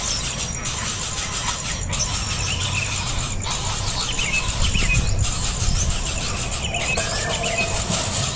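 Nestling birds giving high-pitched squealing begging calls over a steady background hiss.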